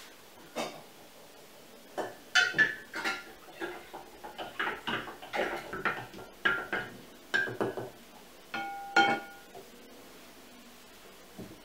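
Wooden stick knocking and scraping against the inside of a large glass jar while stirring grated apples in liquid for apple cider vinegar: a quick, uneven run of knocks, then one louder clink that rings briefly about nine seconds in.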